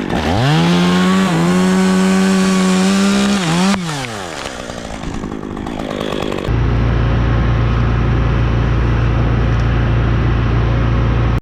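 Chainsaw revved up to full throttle, held for about three seconds, then let off so it winds down. About halfway through, a loud, steady low rumble takes over and cuts off abruptly at the end.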